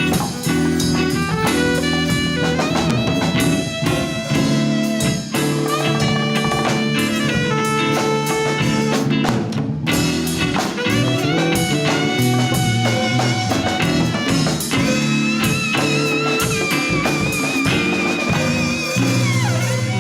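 Latin fusion band playing an instrumental: a guitar melody with held, wavering notes over bass and a drum kit.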